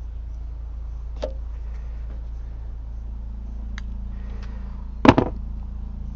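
Hand tools clicking and snapping while a network cable is cut and prepared for its connector end: a few light clicks, then one loud sharp clack about five seconds in, over a steady low hum.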